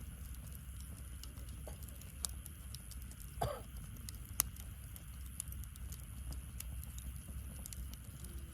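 Wood fire burning in a fire pit, crackling with scattered sharp pops over a low steady rumble; two pops stand out, about two and four seconds in, and a brief falling squeal sounds about three and a half seconds in.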